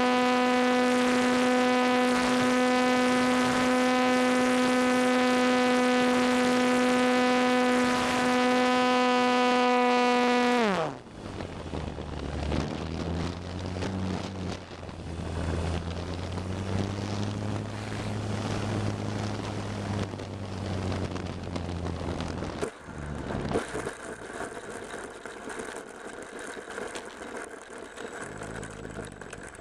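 Onboard sound of a radio-controlled T-28 model plane: its motor and propeller run at a steady high pitch, then about eleven seconds in the pitch drops quickly as it throttles back. After that, wind rush and a low, wavering hum as it comes down low over the field.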